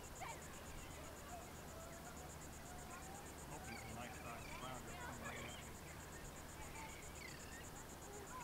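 Faint, steady high-pitched pulsing trill like insects calling, with scattered short chirps over it.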